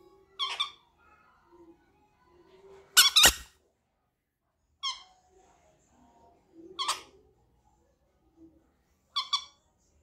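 Green-cheeked conures giving short, squeaky calls, about five of them a second or two apart, the loudest and harshest about three seconds in.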